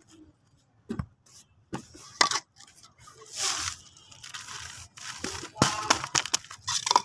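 Plastic sheeting and a plastic bag crinkling and rustling as a hand handles them, in irregular short bursts with a few sharp clicks.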